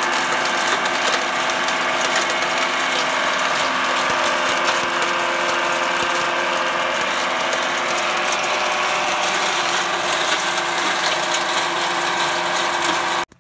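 Electric hammer mill running while crushed quartz ore is poured into its hopper: a loud, steady mechanical clatter as the rock is pulverized against its screen. It cuts off abruptly near the end.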